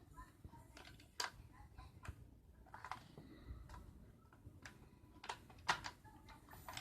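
Faint, scattered clicks and light taps of hard plastic parts being handled: the brush roll of a cordless stick vacuum's floor head being slid out and fitted back in. The two loudest clicks come a little after five seconds in.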